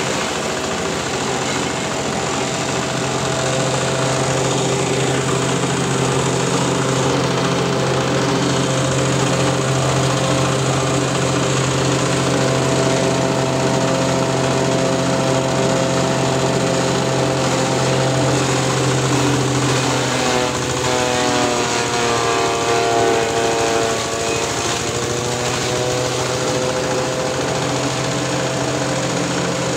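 An 8 hp diesel engine driving a grass chopper runs steadily. About twenty seconds in its pitch sags for a few seconds, then climbs back.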